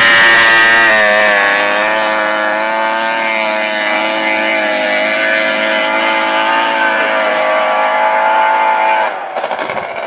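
Three-cylinder two-stroke engine of a 1970s Ski-Doo Blizzard snowmobile running hard as the sled pulls away, its note dipping slightly about a second in and then holding steady. The sound drops away sharply near the end.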